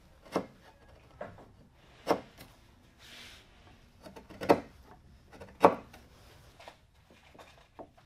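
Mallet striking a chisel to chop out a slot in a mesquite board: a series of sharp, irregularly spaced knocks, the loudest two about four and a half and five and a half seconds in, with a brief scrape of the chisel paring wood around three seconds in.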